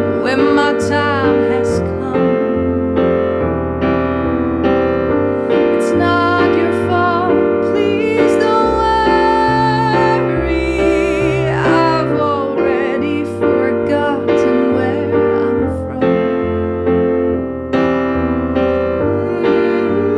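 Instrumental band music led by sustained electric piano chords, with melodic lines sliding in pitch over them.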